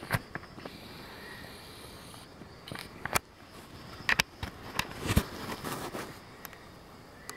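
Scattered sharp crackles and snaps of dry leaves and twigs on the forest floor, a few single ones and a close pair about halfway through, over a faint steady forest background.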